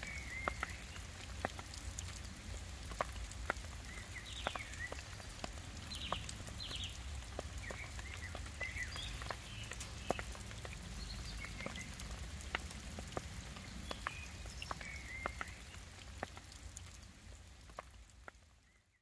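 Light rain: scattered drops ticking on hard surfaces over a steady low rumble, with short high chirps now and then. The sound fades out near the end.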